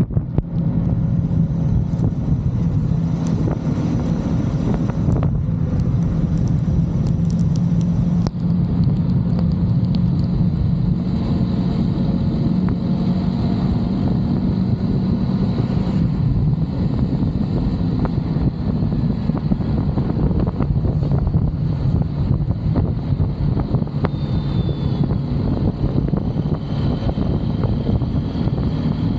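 Steady drone of a vehicle travelling at an even pace, with road and wind noise.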